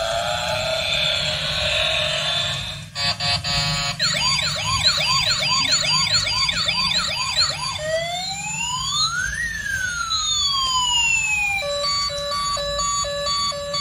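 Toy police car's built-in electronic sound chip cycling through siren effects: a short chirpy tune, then a fast yelping siren, a slow rising and falling wail, and from about twelve seconds in a rapid beeping alarm at about four beeps a second.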